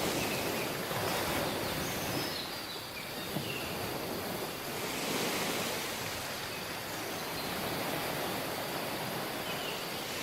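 Sea waves washing onto a beach, a continuous wash of surf that swells and eases every few seconds. A few faint, short high chirps sound over it.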